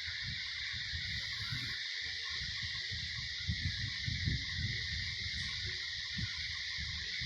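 A sleeping woman snoring, rough low rumbling breaths coming and going unevenly and loudest around the middle, over a steady high hiss.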